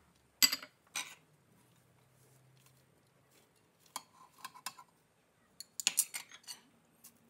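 A plastic spoon and a plate knocking and scraping against a stainless-steel blender jar as spices are tipped in: two sharp clicks about half a second apart near the start, then scattered lighter taps and scrapes around the middle and later on.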